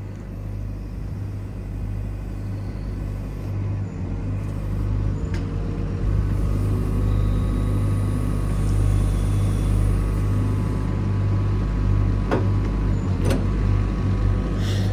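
Case mini excavator's diesel engine running and working its hydraulics, a steady low rumble that grows louder about six seconds in, with a few sharp metallic knocks.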